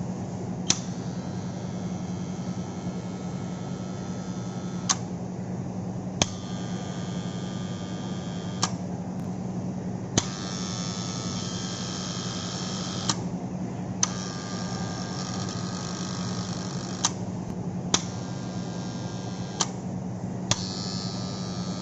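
Magnetic motor contactor humming steadily, with a sharp click every one to four seconds as it chatters. The chattering hum is a fault that keeps the motor from getting its proper three-phase supply and can burn the motor out.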